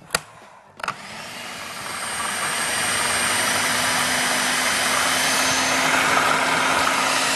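Electric food processor churning cottage cheese, sugar and eggs into a batter. After a click or two, the motor starts about a second in, builds up over the next second and then runs steadily at speed with a held hum.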